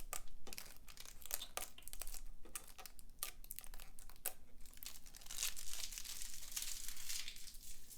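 Adhesive stickers being peeled from their backing sheet: crackling and crinkling of the plastic, then a steadier drawn-out peel from about five seconds in, lasting a couple of seconds.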